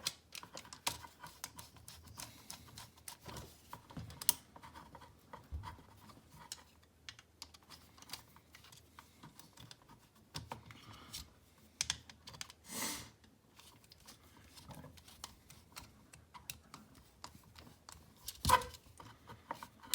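Light, irregular clicks and taps of a screwdriver, terminal screws and copper earth conductors against a plastic 13 A double socket faceplate as the wires are fitted and screwed into its earth terminal. A short rustle comes about two-thirds of the way through, and a louder knock near the end.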